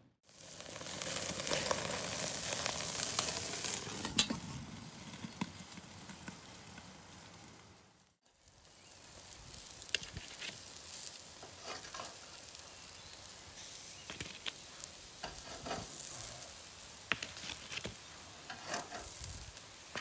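Hamburger patties sizzling over a fire in a kettle grill, with scattered sharp clicks from a metal spatula. The sizzle is louder at first and quieter after a break about eight seconds in.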